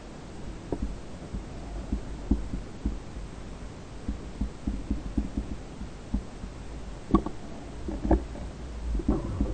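Underwater sound picked up by an action camera in its waterproof housing: a low rumble of moving water with irregular soft knocks and clicks, a few louder knocks near the end.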